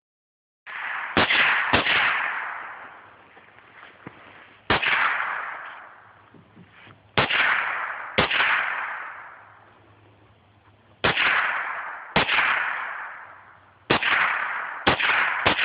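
Colt AR-15 rifle with a Ciener .22LR conversion kit firing single shots, about ten in all, often two in quick succession with pauses of a few seconds between; each sharp crack is followed by a long echo that dies away over a second or two.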